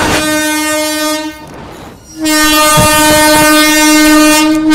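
Locomotive horn sounding two long, steady blasts, broken by a gap of about a second, with the train's running noise heard in the gap.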